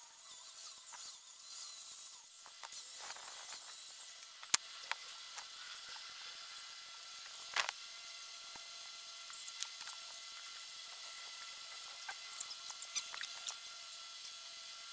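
An angle grinder grinding the rubber edge of a stool made from recycled tires for the first few seconds, then stopping. After that comes a sharp click, a knock a few seconds later, and light clatter as tire pieces are handled.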